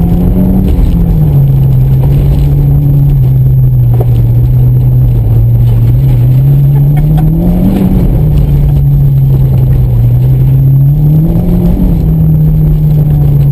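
2014 Mitsubishi Lancer Evolution's turbocharged 2.0-litre four-cylinder engine heard from inside the cabin, running hard on a rallycross run. Its pitch climbs slowly and then drops back sharply twice, about two-thirds of the way in and again near the end.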